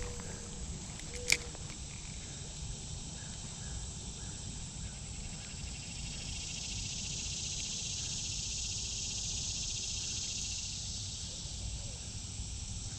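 Insects chirring in a steady, high, even trill that grows a little louder about halfway through, with one sharp click about a second in.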